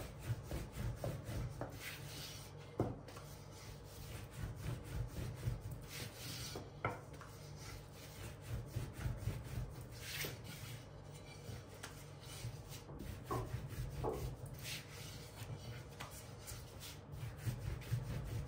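Long, thin wooden rolling pin (oklava) rolling back and forth over a thin sheet of yufka dough on a floured pastry mat: a rubbing, rumbling sound in uneven repeated strokes, with a few sharp clicks.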